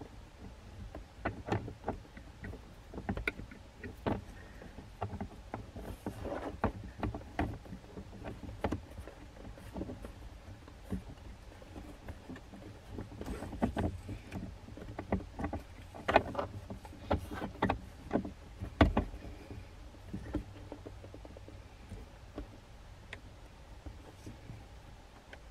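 Hands fitting and adjusting the arms and holders of a Bulletpoint RUBIGRID dash mount. Irregular clicks, knocks and rattles of the mount parts, busiest in the middle stretch.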